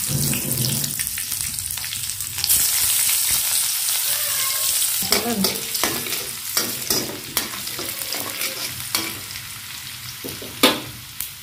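Chopped onion sizzling in hot oil in a metal wok, with a utensil clicking and scraping against the pan as it is stirred. The sizzle swells about two and a half seconds in and then slowly dies down, and a sharp click comes near the end.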